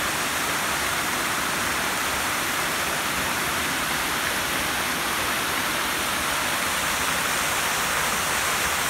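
Steady, loud rush of a waterfall pouring down rock ledges.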